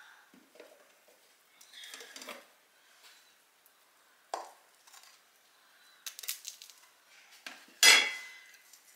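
Kitchen utensil scraping and clinking against dishes: scattered soft knocks and scrapes, then a louder, ringing clink near the end.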